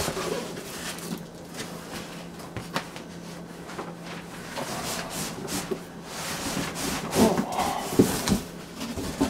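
Cardboard shipping carton being handled and opened: flaps rubbing and scraping as a boxed item is slid out, with a few louder knocks and rustles about seven to eight seconds in. A faint steady hum sits underneath.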